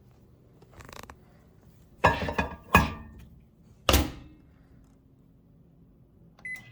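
Microwave oven being loaded and shut: a few knocks of a dish, then a loud thunk of the door closing about four seconds in. A faint low hum follows as the microwave runs, and a short beep comes near the end.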